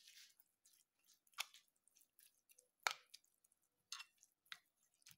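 Metal spoon stirring rolled oats with melted honey on a ceramic plate: a few faint, separate scrapes and clinks of the spoon against the plate, the sharpest a little past halfway.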